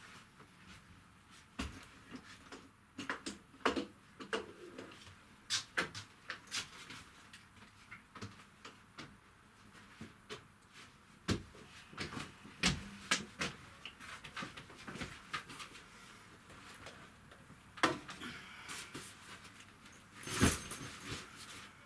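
Irregular knocks, clicks and rustling of bags and clothes being handled while packing up in a small boat cabin, with a sharp knock late on and a louder clatter near the end.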